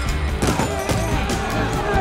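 Film music under the sound effects of a fistfight, with repeated sharp hits and thuds.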